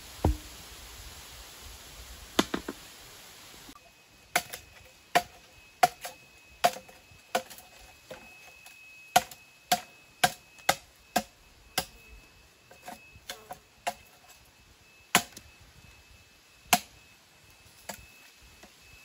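Metal-bladed hand hoe chopping into packed clay soil while digging a pit: sharp strikes about every three-quarters of a second, thinning to one every second or two near the end. A few scattered knocks come before the strikes begin.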